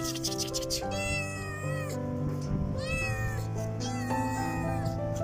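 Kitten meowing: about three drawn-out meows that rise and fall in pitch, over background music with sustained notes.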